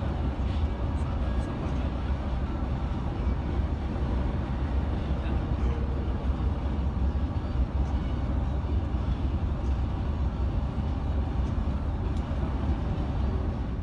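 Mercedes-Benz Travego coach cruising on a highway, heard from the front of the cabin: a steady low rumble of engine drone mixed with tyre and road noise.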